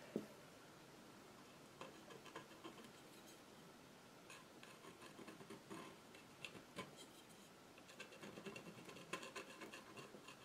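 Faint scratching and tapping of a palette knife dabbing acrylic paint onto a canvas panel, in short irregular strokes that come more often near the end.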